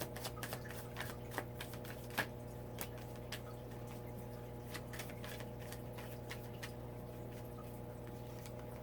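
Tarot cards being handled and laid out: irregular light card snaps and taps, several close together in the first few seconds and sparser afterwards, over a steady low hum.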